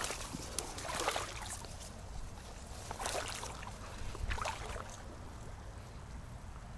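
Shallow water sloshing and splashing in short bursts every second or so, over a steady low wind rumble.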